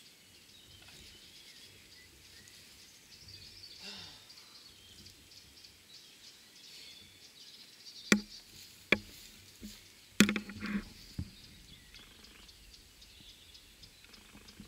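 Quiet outdoor ambience with faint birdsong; from about eight seconds in, a few sharp knocks and a short clatter over about three seconds as a rock climber's shoes and gear strike the rock.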